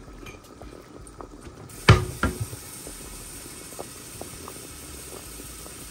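Two sharp knocks about two seconds in, a hard object set down or struck, then a steady low hiss with a few faint ticks.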